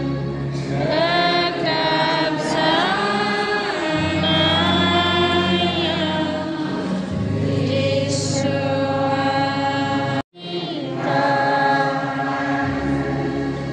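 A group of voices singing a church hymn together, with sustained low notes held underneath that change a few times. The sound drops out abruptly for a split second about ten seconds in, then the singing carries on.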